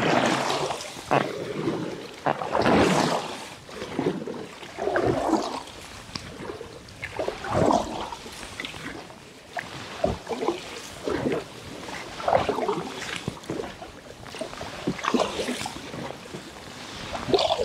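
Paddle strokes from a packraft, splashing and dripping in the water about once a second at an easy, even pace.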